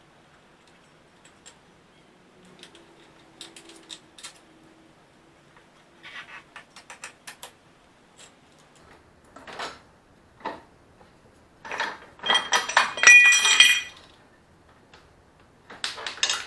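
Metal tools and parts clinking and clattering as they are handled, with scattered light clicks and a denser, ringing metallic clatter about twelve to fourteen seconds in.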